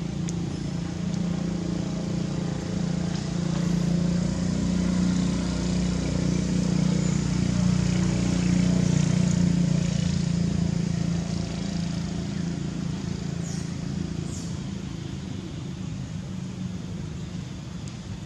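A motor vehicle's engine running with a steady low hum, growing louder to its peak about halfway through and then fading.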